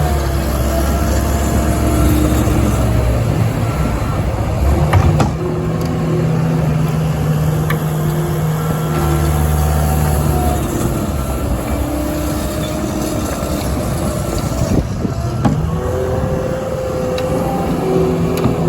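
CAT skid steer's diesel engine running under working load with a box broom sweeper, its pitch rising and falling as it works, with a few sharp knocks.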